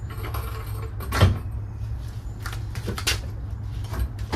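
A few knocks and clunks, the loudest about a second in, as the rear bumper assembly of a Toyota Tacoma is worked loose on a floor jack, over a steady low hum.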